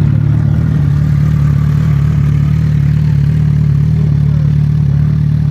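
Motorcycle engine idling steadily, close by and loud.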